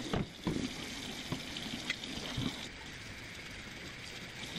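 Long wire bottle brush scrubbing the inside of a wet glass vase in quick strokes, with water sloshing and a few light knocks against the glass in the first half.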